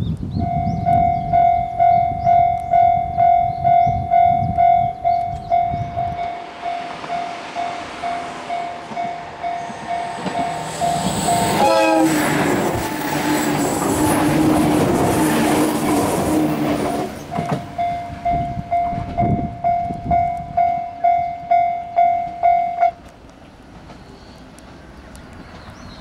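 Japanese level-crossing alarm bell ringing its two-tone electronic clang about twice a second while a red diesel railcar passes on the Bantan Line, its rumble and wheel noise building, peaking and fading in the middle. The bell stops about 23 seconds in, once the train has cleared.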